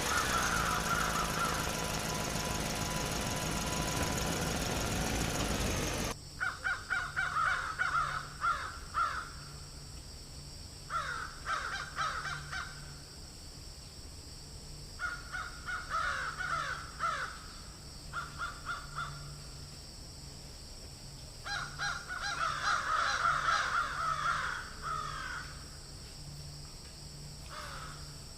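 A loud noisy sound with a falling tone stops suddenly about six seconds in. Bursts of harsh bird calls follow in groups, over a faint steady hum.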